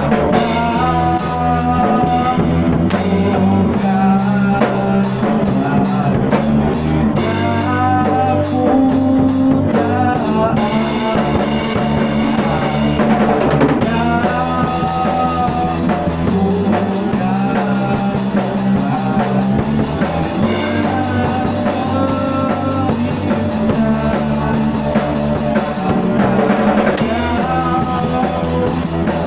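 A band playing a rock song: drum kit, electric guitar and bass, with a sustained melody line over the top.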